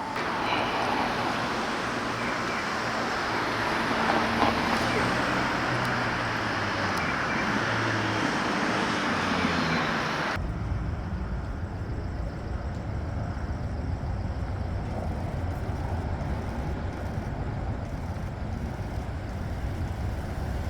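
Street traffic: vehicle engines and tyre noise from passing cars, with one engine note falling around eight or nine seconds in. About ten seconds in the sound changes abruptly to a lower, steadier traffic rumble.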